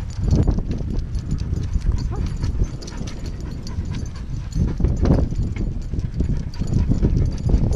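Brisk walking footsteps jolting a body-worn camera, with a dog panting hard on its leash.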